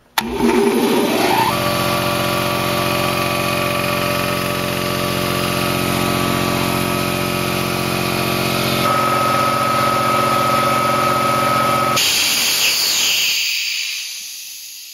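Quincy QT-54 two-stage, four-cylinder reciprocating air compressor kicking on, its electric motor spinning up with a rising whine, then running steadily while it pumps up the tank. About twelve seconds in it cuts out at its 175 psi cut-out pressure, with a hiss of air that fades as the pump stops.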